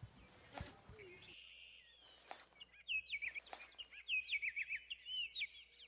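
Small songbirds chirping and twittering in quick high notes, beginning about a second in.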